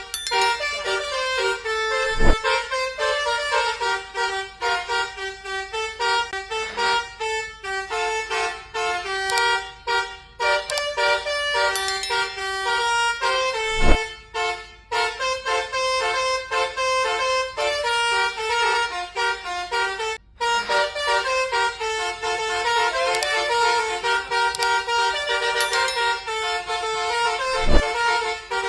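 Telolet bus horn, a multi-tone 'basuri' air horn, playing a quick melody of shifting notes over and over. Three short thumps cut through it, about two seconds in, halfway and near the end.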